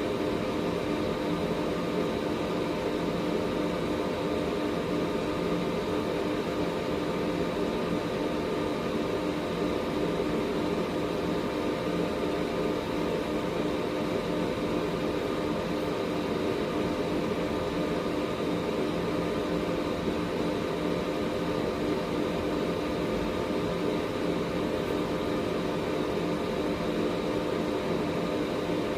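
Air purifier running steadily: an even rush of fan air with a constant motor hum made of several fixed tones.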